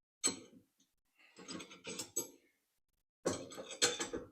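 Small metal hardware clinking and clattering as washers and a wheel are fitted onto a cart axle, in three short bouts, the last the loudest.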